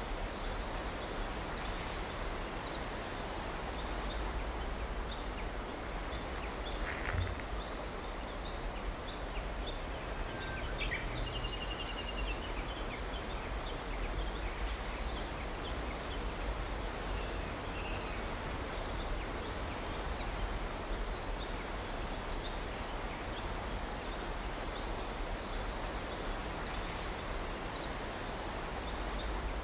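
Steady ambient background noise, a low hum under an even hiss, with faint scattered chirps and ticks, one short trill, and a single soft knock partway through.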